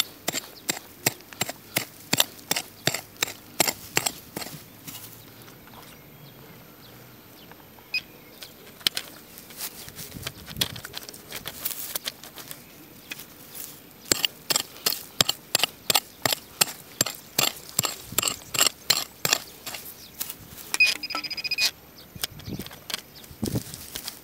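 Dry grass and stalks crackling with quick runs of sharp clicks as they are trodden and swept through, with a quieter stretch in the middle. A short high beep sounds twice about 21 seconds in.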